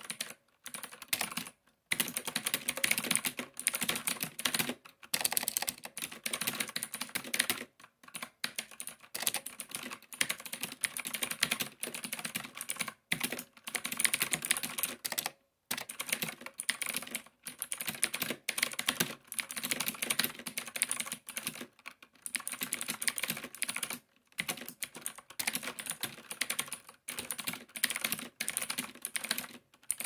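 Fast touch-typing at about 80 words a minute on an Xtreme Gaming mechanical keyboard with clicky Outemu Blue switches: a dense stream of sharp key clicks, broken by short pauses every few seconds.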